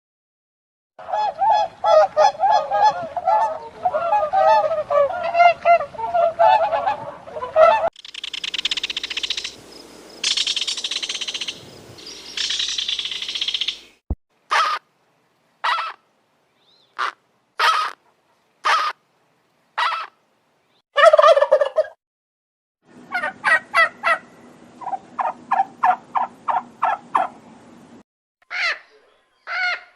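Recordings of bird calls played one after another. It opens with several seconds of rapid, warbling turkey gobbling. A few seconds of hissing follow, then a string of short separate calls and quick runs of calls.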